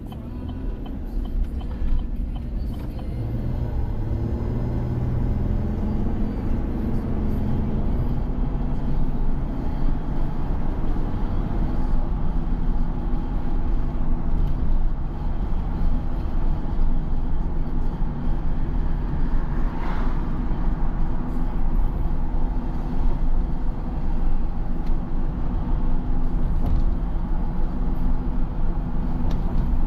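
A car driving: steady engine and road rumble that builds over the first several seconds as it speeds up, then holds level.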